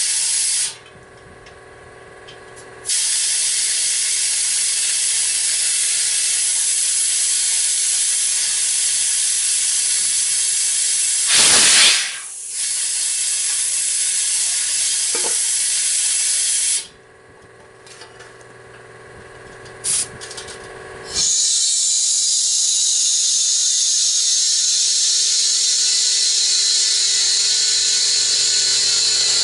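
Compressed air hissing hard through an air line in long stretches while a truck tire bead is being aired up. It cuts off twice into a faint steady hum. About eleven and a half seconds in comes a short, louder rush of air.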